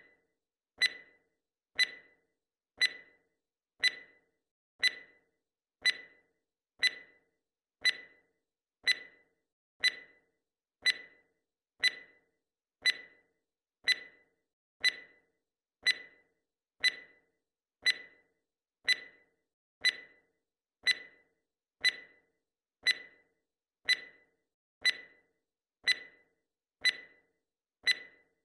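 Timer tick sound effect: one short, sharp tick every second, evenly spaced, marking each second of the count.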